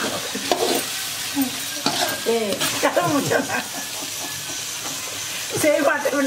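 A perforated steel ladle stirring and scraping a thick prawn and drumstick gravy around a metal kadai, with sharp scrapes of the ladle against the pan over a steady sizzle of the gravy frying in its oil.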